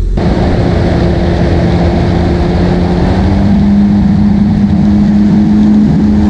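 Yamaha WaveRunner's four-stroke engine running at speed across a lake, with rushing wind and water noise; the engine's pitch rises a little about halfway through.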